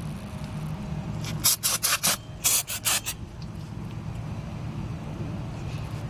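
Cleaning of a rear drum-brake hub and backing plate: a quick run of about seven short, sharp hissing strokes bunched between one and three seconds in, over a steady low hum.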